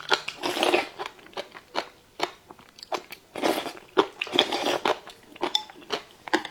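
Close-up chewing and crunching of crisp, medium-spicy pickled radish strips: a run of sharp crunches and crackles as the strips are bitten and chewed.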